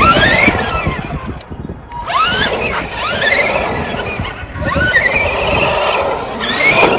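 RC monster truck's motor and drivetrain whining, rising in pitch with each burst of throttle, about five times, over a rough rumble of tyres on asphalt.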